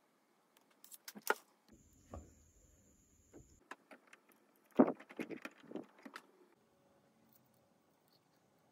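Small plastic clicks and knocks of a Canon iP2770 ink cartridge being handled and unclipped from the printer's carriage: a few scattered clicks about a second in, then a denser, louder run of clicks and knocks about five seconds in.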